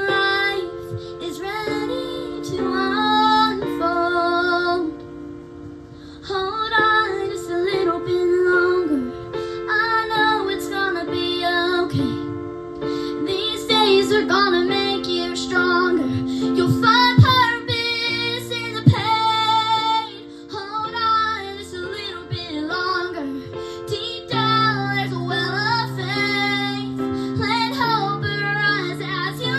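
Female voices singing a song with sustained instrumental accompaniment holding chords underneath. The voices pause briefly about five seconds in and again around twenty seconds.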